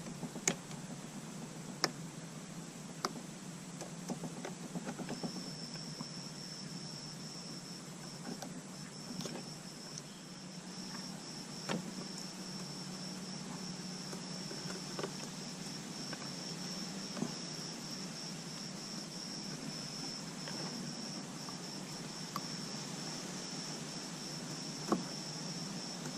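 Scattered light clicks and taps from hands working on a car's tail light wiring harness, over a steady low hum. From about five seconds in, a continuous high-pitched tone sounds underneath.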